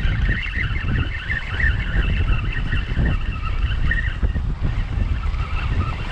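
Sea wind buffeting the microphone in a steady rumble, with a wavering higher whirr over it that drops away about four seconds in and comes back near the end.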